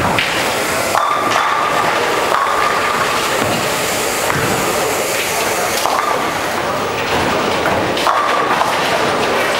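Bowling alley din: bowling balls rumbling down the wooden lanes, with a few sharp knocks of balls and pins striking, and voices of players in the hall.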